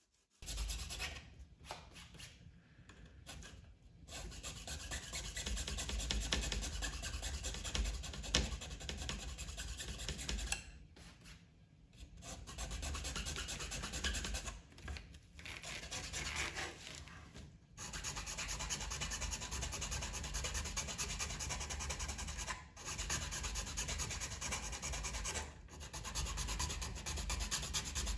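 Hand file rasping back and forth along the edge of a plastic dash gauge bezel, shaping the cut edge to fit. The strokes run on steadily with several brief pauses, the longest about a third of the way through.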